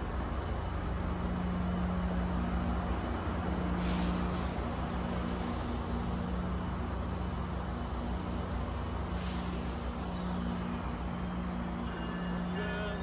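Diesel commuter train idling at a station platform: a steady low engine hum, with two short sharp air hisses about four and nine seconds in.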